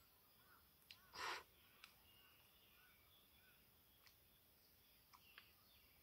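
Quiet eating of noodles with chopsticks: one short slurp about a second in and a few light clicks. Faint bird chirps sound in the background.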